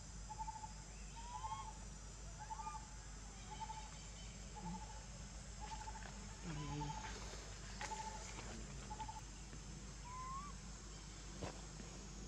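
A bird calling a short trilled note over and over, about once a second, with a few short rising whistles mixed in, over a steady high drone of insects.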